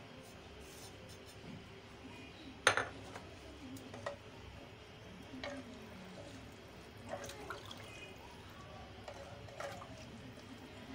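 Wooden spoon stirring onions, chillies and spices in water inside a clay handi, with liquid sloshing and a run of light knocks against the pot. A single sharp clink about three seconds in is the loudest sound.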